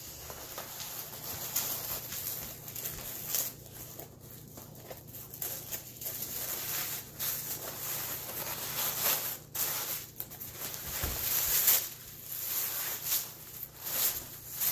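Pink tissue paper rustling and crinkling as it is pulled and unrolled off a cardboard tube by hand, in irregular bursts.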